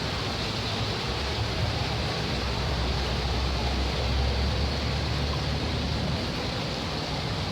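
Steady rushing noise over the low, even hum of an idling engine.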